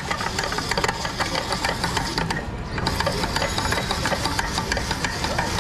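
Hand-cranked spiral potato cutter turning a raw potato on a skewer through its blade, a steady run of rapid clicking and scraping as the potato is sliced into a spiral, with a brief let-up about two and a half seconds in.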